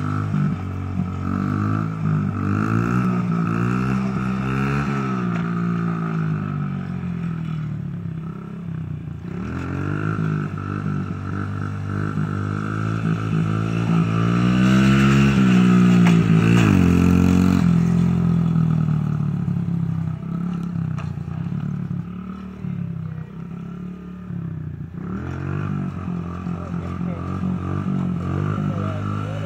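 Pit bike engine revving up and down over and over as the rider throttles up into wheelies, its pitch rising and falling with each blip of the throttle.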